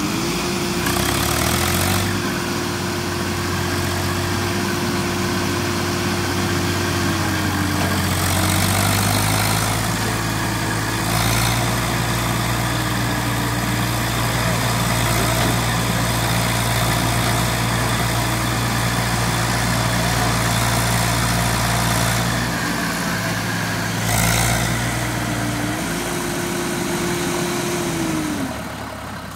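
Tractor diesel engine running hard under load as a loaded trolley is hauled through soft mud. It revs up at the start and holds high revs, with its pitch dipping and recovering several times and a few short louder surges.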